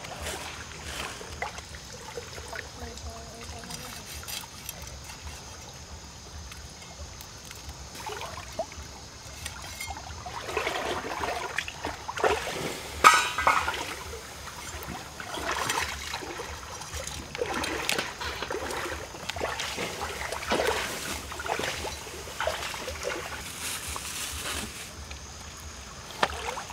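A forest stream trickling steadily, with irregular crackles and handling clicks through the middle, the loudest a sharp crackle just past halfway.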